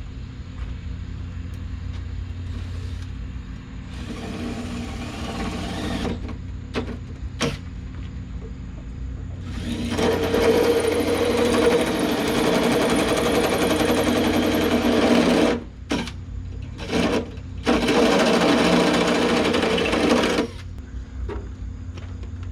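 Handheld power tool motor running in repeated bursts: a couple of seconds, a short blip, then a run of about five seconds, two quick blips and a final run of about three seconds, each with a steady whirring pitch.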